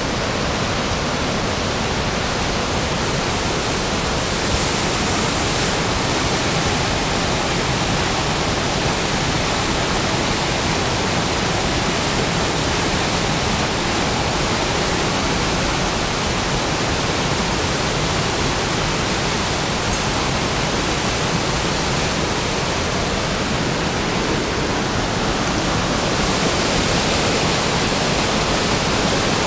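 Fast whitewater mountain stream cascading over rocks, a loud steady rush of water.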